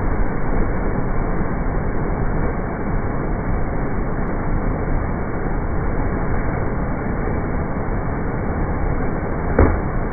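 Water rushing steadily over a dam spillway and churning white into the pool below, with one brief knock near the end.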